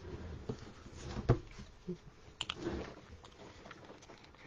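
Paper and card being handled and pressed together on a craft table: soft rustling and small clicks, with one sharp tap just over a second in and a few quick clicks about halfway through.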